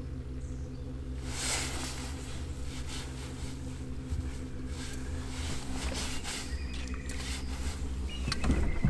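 A small motor running with a steady low hum, with a brief rush of noise about a second and a half in and a few sharp clicks and knocks near the end, the loudest part.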